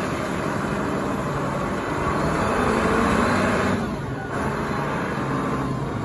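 Large Caterpillar forklift's engine running steadily as the forklift drives and turns, swelling slightly in the middle and easing off about four seconds in.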